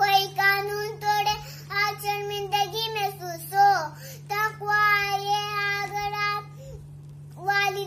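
A young girl singing an Urdu nasheed welcoming Ramadan in long, held phrases with short breaths between them, over a steady low hum.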